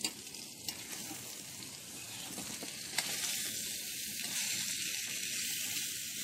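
Bacon and eggs frying in a skillet on a wood-burning tent stove: a steady sizzle, with a couple of sharp clicks early on and about three seconds in.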